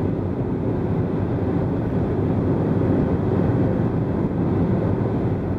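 Steady road noise of a car driving at highway speed, heard from inside the car: an even low rumble of tyres and engine.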